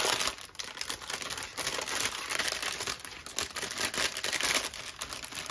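Small clear plastic zip-lock bags of diamond painting drills crinkling and rustling as they are handled and pulled apart.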